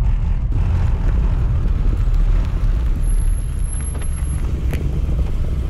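1988 BMW E28 driving, a steady low engine and road rumble.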